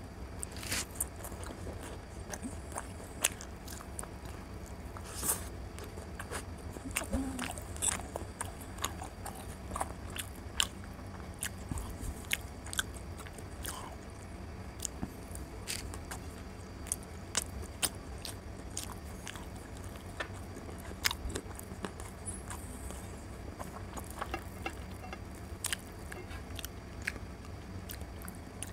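Close-miked mouth sounds of a person chewing luchi soaked in chicken curry: irregular wet smacks and clicks of biting and chewing. A steady low hum runs underneath.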